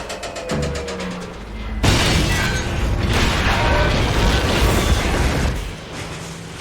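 Layered sound effect of a big rig truck smashing through a building: a sudden loud crash and explosion boom about two seconds in, followed by several seconds of dense noisy debris and destruction that falls away near the end.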